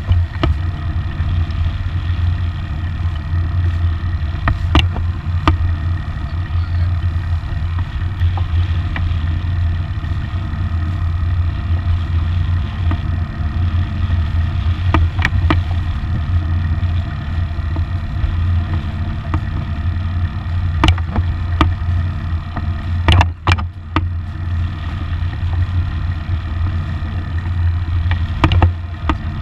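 A sailboat's inboard engine running steadily with a low drone, while sharp knocks come now and then, several in quick succession near the end.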